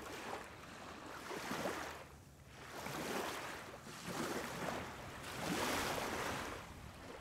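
Small waves washing against a rocky shore, a soft hiss that swells and fades several times.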